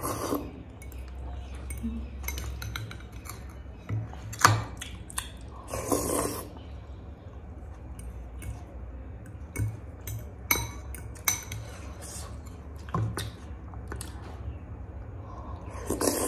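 A metal fork clinking and scraping against a glass bowl of thukpa noodle soup, in scattered sharp clicks. Two short, loud slurps of noodles come about six seconds in and again near the end.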